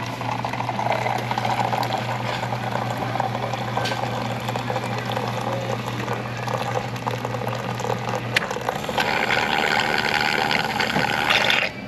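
Self-serve coffee dispenser pouring coffee into a cup: a steady running of liquid over a machine hum. The flow gets louder about nine seconds in, then cuts off suddenly just before the end.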